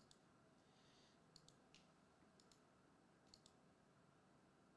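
Near silence, with a few faint, scattered clicks of computer keys.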